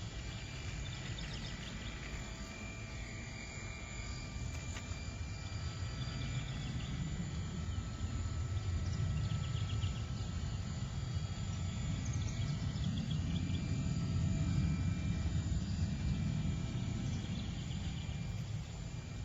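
Outdoor background noise: a low rumble that swells in the middle and eases off, with a short, high, trilled chirp repeating every few seconds.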